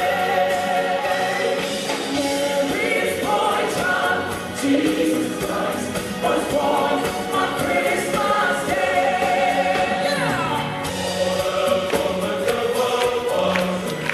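A choir singing, with many voices holding long notes.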